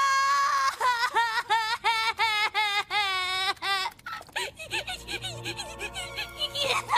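Rainbow Dash, the cartoon pony, bursts into loud, exaggerated wailing sobs, her high voice wobbling in pulses about twice a second. About four and a half seconds in the wail turns lower and steadier, with a low hum under it.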